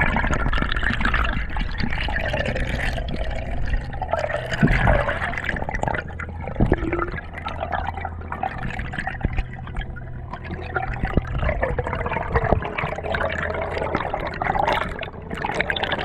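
Underwater sound picked up by a GoPro in its housing as a diver swims: rushing and gurgling water with many small clicks and knocks over a steady low hum.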